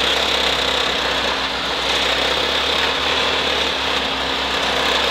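The 1980 UAZ off-roader's four-cylinder petrol engine runs steadily as the vehicle drives through snow.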